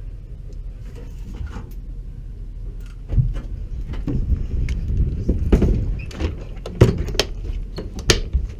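A low steady rumble, then, from about three seconds in, a run of sharp clicks and knocks, the loudest near the end.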